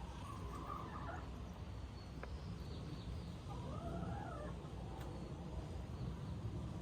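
Domestic hens calling: two drawn-out, wavering clucking calls, one at the start and one about three and a half seconds in, over a steady low rumble.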